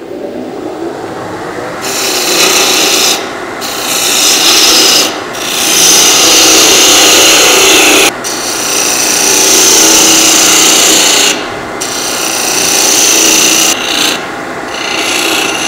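Spindle gouge cutting the end of a wooden blank spinning on a wood lathe, a hissing scrape of shavings being taken off to form the chuck tenon. The cutting starts about two seconds in and comes in several passes with brief breaks between them, over the lathe's steady running sound.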